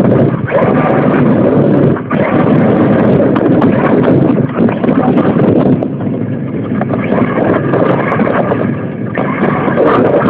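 Radio-controlled car driving, picked up by a phone mounted on the car: a loud, rough, continuous rumble of motor, drivetrain and tyres rattling over the ground, with a few brief dips as the throttle eases.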